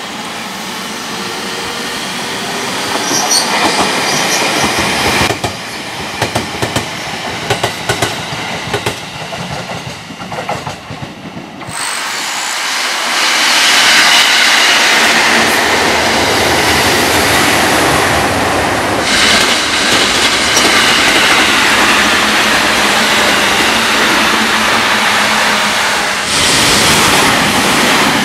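Electric multiple-unit passenger trains passing close by: wheels clattering over rail joints, with a steady whine. The sound changes abruptly several times, about 5, 12 and 26 seconds in, getting louder after the 12-second change.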